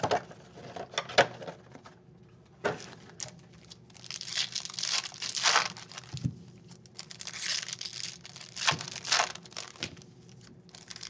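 Foil trading-card packs from a Topps Stadium Club Chrome box being handled and torn open: irregular bursts of crinkling and tearing, with a few sharp clicks about the first second.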